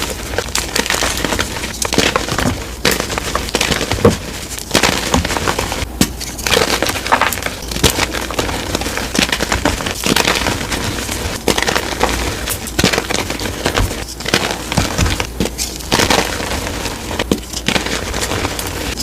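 Dyed gym chalk being crushed and crumbled: a dense, unbroken run of crunching and crackling.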